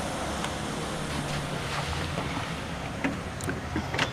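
Steady low rumble of background noise with wind on the microphone, and a few faint clicks in the last second.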